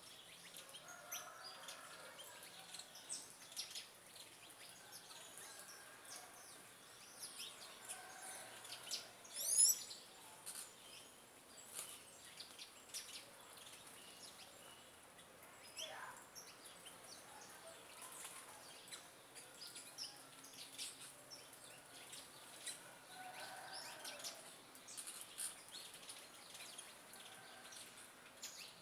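Backyard birds chirping: many short, high calls scattered throughout, over a steady high hiss. A brief, louder burst of quick rising notes comes about nine and a half seconds in.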